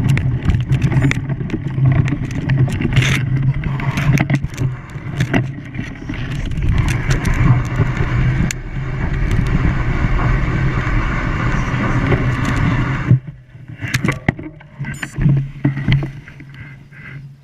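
An engine running steadily under a loud rushing noise with scattered knocks. About 13 seconds in, the rushing drops away and the engine hum carries on more quietly.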